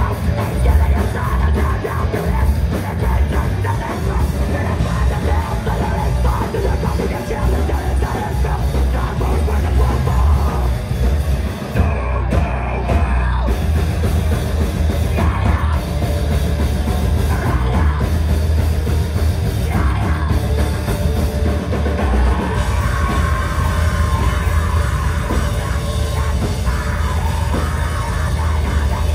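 Live rock band playing a loud, heavy song with a drum kit, in a live club mix.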